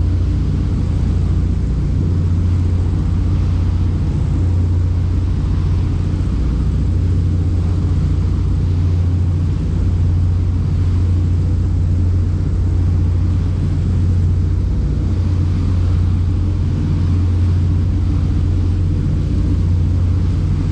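Motorboat engine running at a steady cruising speed, a constant low drone with water and wind noise over it.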